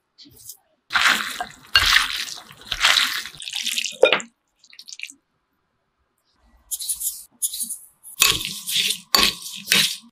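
Wet food-preparation sounds: sauce poured over a bowl of vegetables and the dish tossed, in short splashy bursts. There is a pause of about two seconds in the middle before more bursts.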